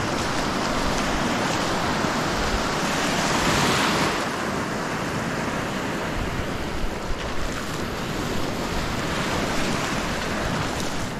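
Shallow sea surf washing in over sand, foam hissing as the wash spreads, loudest as a wave surges in about three to four seconds in.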